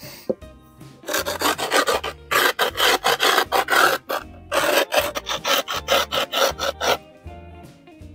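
Grip tape on a skateboard deck being scraped along the board's edge in quick back-and-forth strokes, a sandpaper-like rasping, with a short pause about four seconds in.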